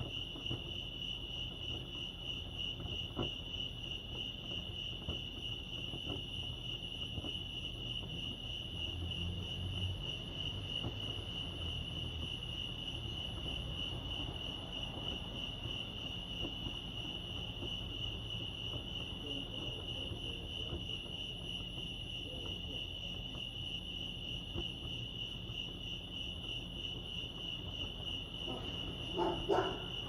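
Crickets chirping in a steady, high-pitched trill that runs on without a break, with a brief, louder, lower sound just before the end.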